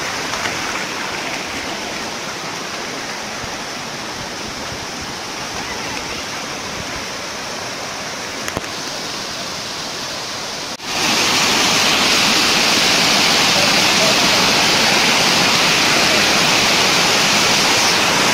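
Water of a tiered waterfall cascade rushing over rock ledges, a steady hiss. About eleven seconds in it jumps suddenly louder and brighter, as if right at the pouring water.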